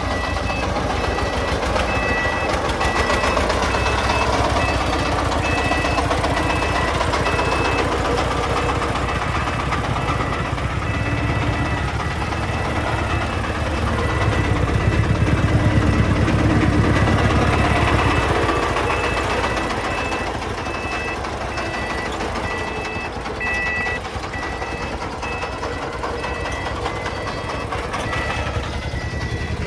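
Diesel engine of a loaded three-wheeled công nông dump truck running hard as it works through soft ploughed soil, loudest about halfway through. An electronic beeper sounds in short repeated beeps on and off.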